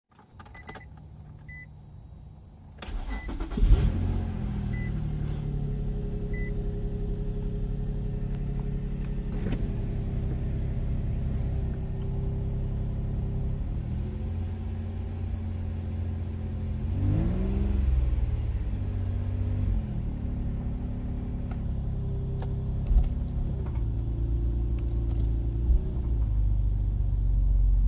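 Infiniti G35's 3.5-litre V6 starting after a few short chime beeps, then idling, with one brief rise and fall in revs about halfway through. The owner hears a tapping in it that he suspects is an exhaust leak on the passenger side just behind the engine.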